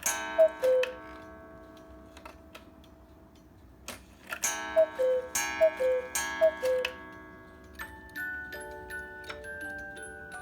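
Black Forest chalet cuckoo clock with a bell tower. A bell strikes with one two-note cuckoo call right at the start, then bell strikes ring again about four seconds in with three cuckoo calls in quick succession. Near the end the clock's music box begins a tune, with the clock ticking underneath.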